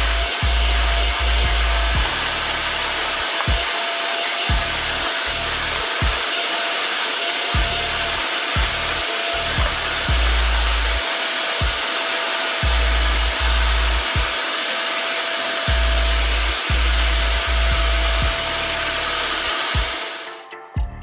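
Power tool sawing steadily into wood, cutting a recess for a flush-mount latch in a plywood drawer box; it stops abruptly near the end. Background music plays underneath.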